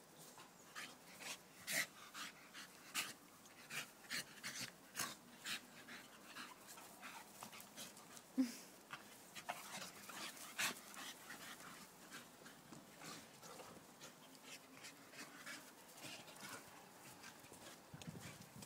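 Two Staffordshire bull terriers play-fighting, panting and huffing in quick irregular breaths, with one louder short sound from a dog about eight seconds in. The breathing is busiest in the first half and eases off later.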